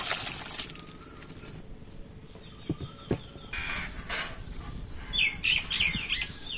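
Birds chirping and calling, loudest in a quick run of sharp chirps about five seconds in, with a few light knocks shortly before.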